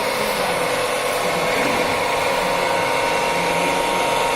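Centre lathe fitted with a gear-cutting fixture running steadily, a constant motor whine over machine noise.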